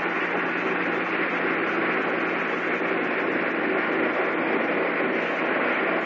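Steady hiss with a constant low hum: the machinery and room ambience of an aquarium hall in front of a tank.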